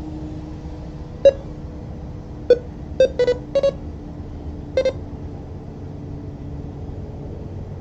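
Short electronic beeps, about six of them, some in quick pairs, between one and five seconds in, over a steady low hum.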